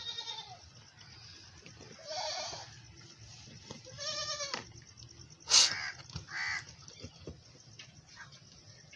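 Goats bleating: about four wavering bleats a couple of seconds apart, with one sudden, sharp, loud noise a little past halfway.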